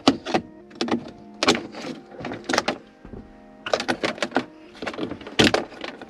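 Hard plastic clicking, snapping and rattling as wiring clips and connectors are pried up off a car's center console floor with a small screwdriver, in irregular bursts with the loudest snap near the end.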